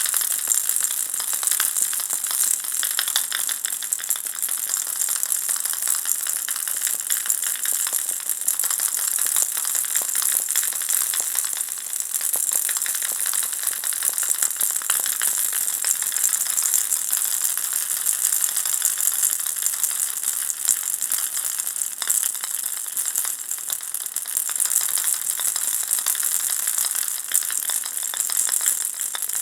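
Ball-shaped baby rattle shaken continuously: a dense, steady, high-pitched rattle of small beads inside a plastic sphere.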